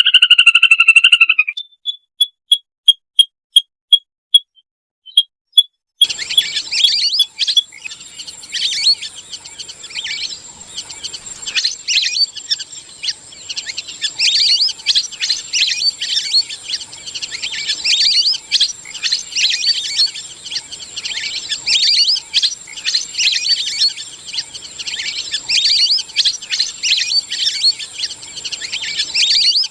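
A flock of lesser whistling ducks giving shrill twittering whistled calls. It opens with a string of short high pips, about three a second. At about six seconds in, a dense, continuous flock chatter cuts in abruptly, over a faint steady high whine.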